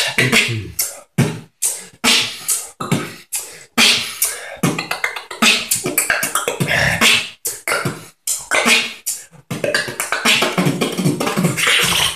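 Solo human beatboxing, freestyle: a fast, dense run of percussive mouth sounds with only brief breaks.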